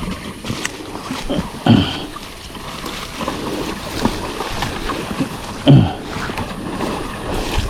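Tall grass swishing and crackling as a person pushes through it on foot, with two louder swishes.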